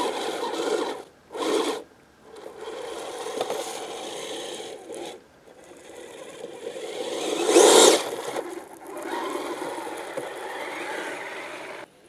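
Kyosho Blizzard SR radio-controlled snowcat's electric drive whirring in stop-start bursts as it climbs and pushes snow with its blade, with one louder, rising surge of throttle about two-thirds of the way through.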